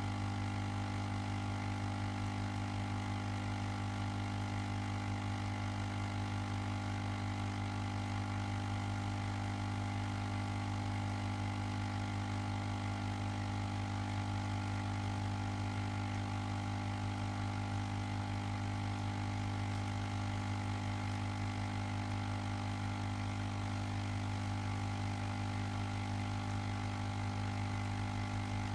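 Ozone generator running with a steady electrical hum that does not change.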